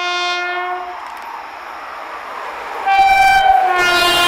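Electric locomotive horn of the Mumbai Rajdhani Express as the train approaches at speed. A long blast at the start, then about three seconds in a higher note followed by a lower one that drops in pitch as the locomotive passes. The rush of the passing train builds near the end.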